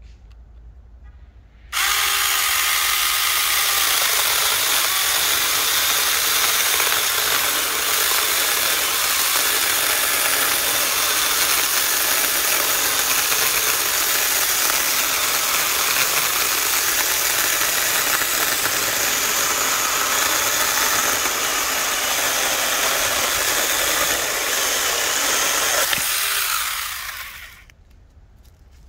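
Saker 20-volt cordless mini chainsaw starting up about two seconds in with a brief motor whine, then cutting through a log for about 25 seconds, its chain and motor running loud and steady, before the motor stops and winds down near the end.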